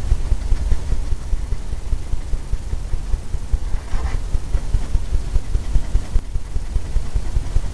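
Blender brush tapping against a stretched canvas to stipple in the beach: a fast, uneven run of dull low thumps, several a second.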